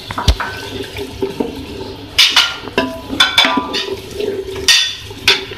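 A dull thump as yogurt drops into a pot of frying chickpeas and masala, then, from about two seconds in, a wooden spatula scraping and knocking against the metal pot as the yogurt is stirred in, the pot ringing briefly at some strokes.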